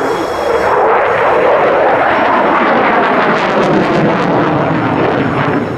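Loud, steady jet noise of a General Dynamics F-16 Fighting Falcon flying a smoke-trailing display pass overhead, growing rougher and crackling for a stretch about three seconds in.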